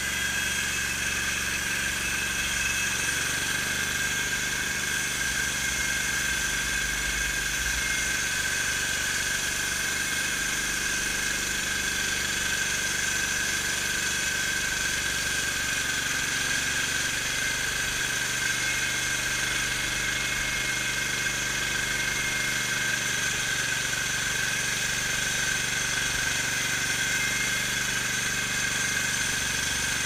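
A 24 hp Kohler V-twin lawn mower engine runs steadily under load, driving a homemade band sawmill as its blade cuts through dry locust. Steady high-pitched tones sit over the engine, and the engine's note shifts slightly about three seconds in.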